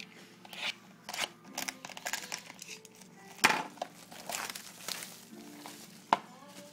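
Plastic shrink wrap crinkling and rustling as it is pulled off a cardboard trading-card box, with scattered clicks and a sharp knock about three and a half seconds in and another near the end. Quiet music plays underneath.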